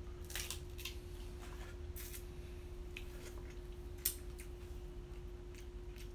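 Crab leg shells being cracked and snapped apart by hand: a scatter of short, sharp cracks and clicks, with the sharpest one about four seconds in, over a steady low hum.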